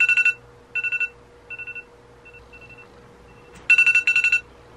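Alarm clock ringing in rapid trills: a loud burst at the start, shorter fainter bursts through the middle, and a long loud trill again near the end.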